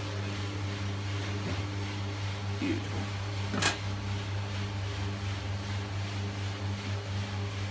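Commercial espresso machine's pump humming steadily while a shot extracts into a glass, with one short click about three and a half seconds in.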